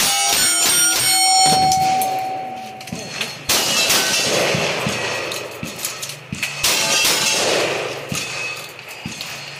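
A fast string of lever-action rifle shots, about four or five a second, each answered by the clang of a steel target ringing. One plate's ring hangs on for a second or so. Then come a couple of slower, heavier double-barrel shotgun shots.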